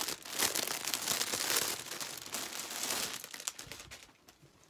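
Clear plastic packaging bag crinkling as it is handled and opened to take out a pair of pants, dying away near the end.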